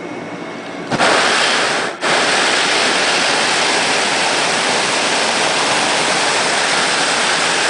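Hot-air balloon's propane burner firing: a loud, steady rushing blast that starts suddenly about a second in, cuts out for an instant, then runs on evenly.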